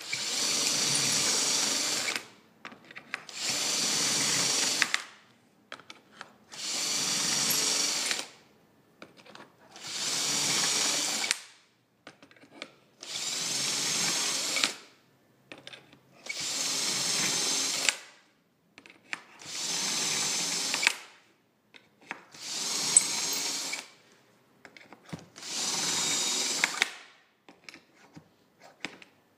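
Cordless drill boring a row of holes into a wooden panel through a drilling jig. The motor runs in about nine separate runs of about two seconds each, one for each hole, with short pauses between them.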